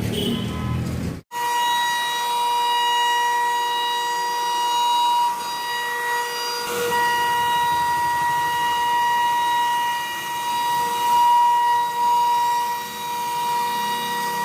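CNC router spindle carving a mahogany wardrobe panel, giving a steady high-pitched whine that starts abruptly about a second in and holds nearly unchanged, with small dips in loudness as the bit cuts.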